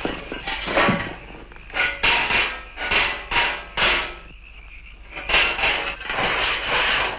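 A metal hand tool worked by hand in a run of short scraping strokes, about one or two a second, with a pause of about a second a little past the middle.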